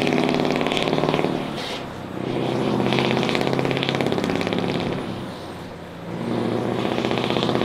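Scania S650's V8 diesel through open twin exhaust pipes, pulling hard under load with the heavy aerial work platform on board, a loud, brutal rapping note. It dips twice, about two and six seconds in, then comes back up.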